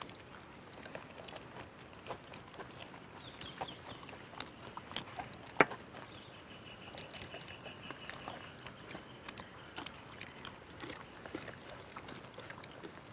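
Quiet outdoor background with small scattered clicks and rustles of people eating with their hands from a shared platter of rice, curry and fried chicken, with one sharper click about five and a half seconds in.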